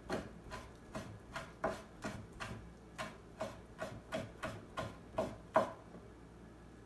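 Kitchen knife finely mincing boiled intestine on a cutting board for dulet, striking the board in quick even chops about two to three a second, the last one the loudest. The chopping stops about five and a half seconds in.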